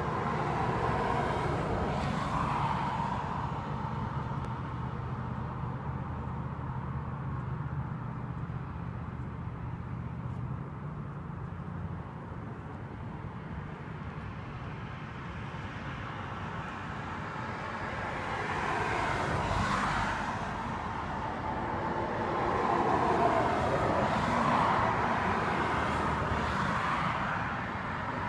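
Street traffic: a vehicle engine idling with a steady low hum for the first third or so, then cars passing by, the loudest swells about two-thirds of the way through and again shortly before the end.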